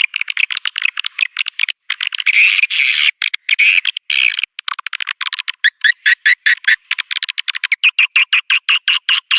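Swiftlet lure call played back, the call used to draw swiftlets into a nesting house: rapid trains of sharp clicking chirps with a longer stretch of continuous twittering about two seconds in.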